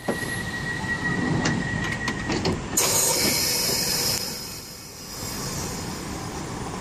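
London Underground 1973 Tube Stock train at the platform with its doors closing: a steady high tone and several sharp knocks during the first two and a half seconds, then a loud burst of compressed-air hiss lasting just over a second, followed by a lower steady rumble from the train.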